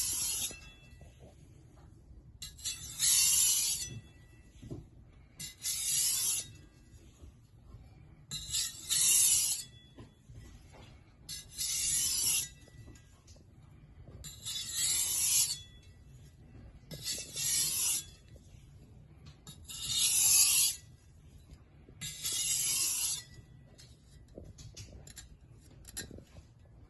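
Chinese cleaver blade drawn across a whetstone, about eight rasping strokes each lasting about a second, roughly one every three seconds.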